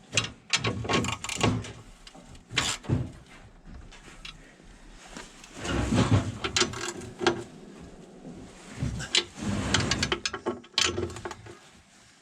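Irregular metallic clicks, clanks and knocks of hand tools and bolts as a snowplow mount plate is bolted on and the bolts are snugged by hand, with a denser clattering spell about halfway through and again near the end.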